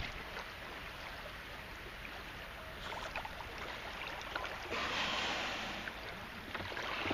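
Water lapping and washing gently around a kayak's hull in the shallows, with faint ticks, swelling louder about five seconds in.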